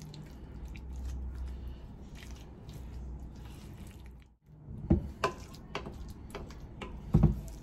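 Wooden spoon scooping thick, creamy chicken dip out of a glass mixing bowl and spreading it into a metal baking pan, with wet squishing and scraping. A few sharp knocks of the spoon come about five seconds in, and the loudest comes near the end.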